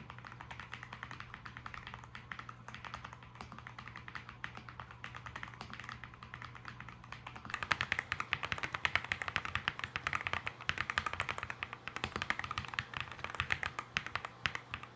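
Typing on a Keychron Z6 Ultra full-size aluminium mechanical keyboard fitted with Silk POM switches: a fast, continuous run of key clacks. For the first seven and a half seconds it is recorded through a smartphone, fainter and with a low hum under it; from then on it is louder and clearer through a microphone.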